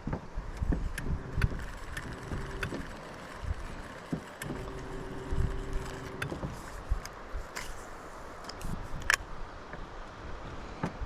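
Electric trolling motor humming steadily in two short runs of about two seconds each, with scattered sharp clicks and knocks around the boat and a low rumble underneath.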